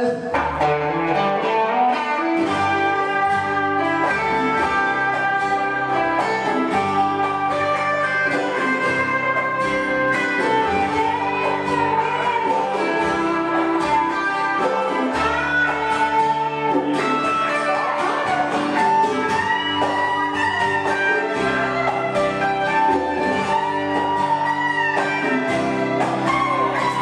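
Live band instrumental break: a Fender Stratocaster electric guitar plays lead with bent notes over acoustic guitar.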